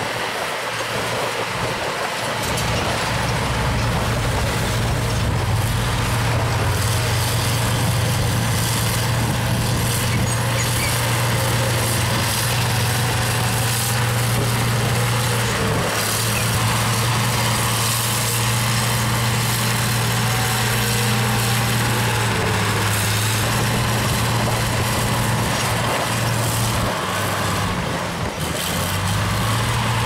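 Heavy diesel engine of earthmoving machinery running under steady load, its low hum stepping slightly in pitch a few times, with a brief dip in level near the end.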